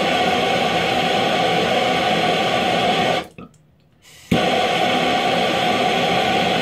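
Handheld gas blowtorch burning with a steady hiss while it heats a tin of candle wax. About three seconds in the sound cuts out, and it comes back a second later with a sharp pop.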